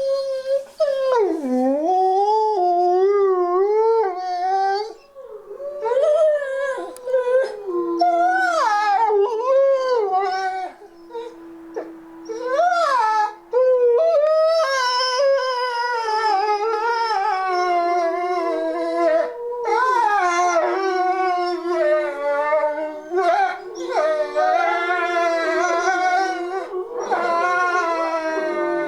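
A pack of captive wolves howling together in a chorus. Several long howls overlap at different pitches, wavering and gliding up and down, with short breaks before the voices join in again.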